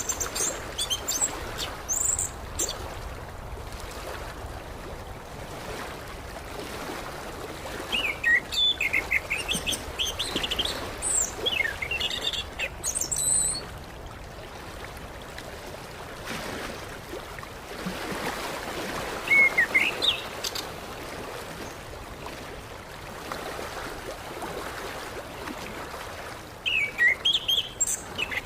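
Orange-headed thrush singing: bursts of quick, varied whistled and chirped phrases several seconds apart, the longest run in the middle, over a steady background hiss.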